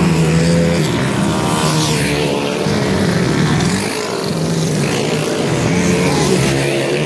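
Several dirt bike engines revving as the bikes race up the dirt track and pass close by, their pitch rising and falling with the throttle.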